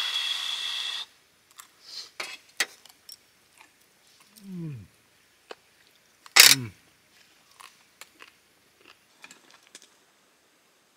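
Quiet eating at a camp table: a short hiss at the start, small scattered clicks, and a low falling 'mmm' of satisfaction. Halfway through, a sharp metal clack as the metal cup is set down on the aluminium table, followed by another low falling voice sound.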